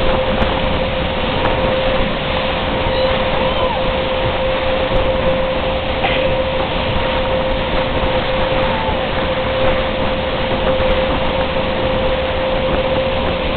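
Motorboat running at speed while towing a tube, a steady engine whine over the rush of the wake and wind.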